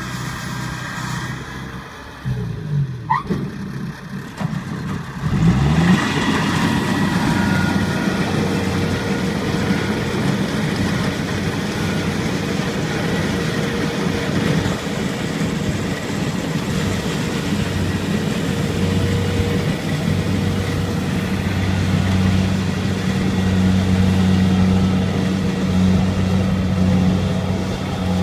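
Kubota rice combine harvester running as it cuts standing rice: the engine rises in pitch and level about five seconds in, then holds a steady drone under load.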